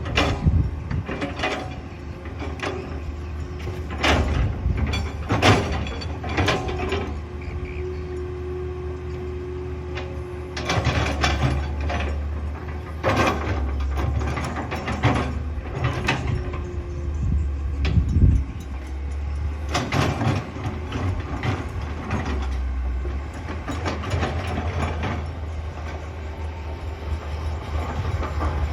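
Excavator at work: its diesel engine runs steadily under repeated metallic clanks and knocks, with a steady whine for a few seconds partway through.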